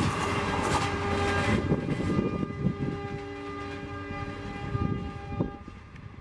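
Passenger train coaches rolling past and away, the wheel rumble and clatter fading. A long steady high-pitched tone rings from the train for most of the passage.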